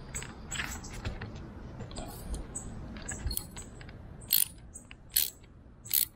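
Hand socket ratchet clicking as it backs out a bolt from an outboard's internal anode. Light pawl clicks run through, and in the last two seconds louder clicks come at an even pace, a little under one a second.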